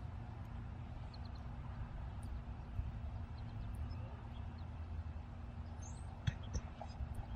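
Faint, short chirps of backyard songbirds, with one brief high call that curves downward near the end, over a steady low rumble.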